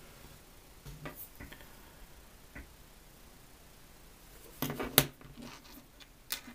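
A few small sharp clicks and light knocks of things being handled off camera. There is a brief cluster about four and a half seconds in ending in one loud click, and another click near the end.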